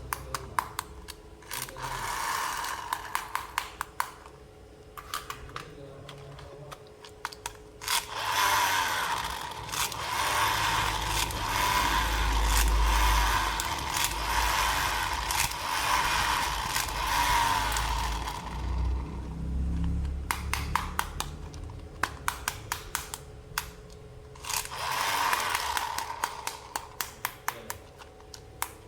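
Plastic toy packaging and parts handled close up: long stretches of crinkling and scraping broken by runs of rapid small clicks.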